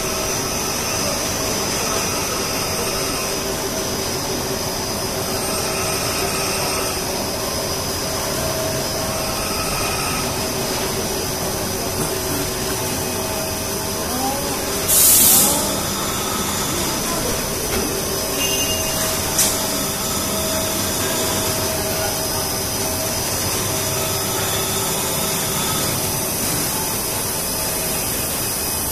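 Blown film extrusion machine running: a steady mechanical hum and rush of air with several steady whining tones. About halfway through comes a short, loud hiss, and a few seconds later a brief sharp tick.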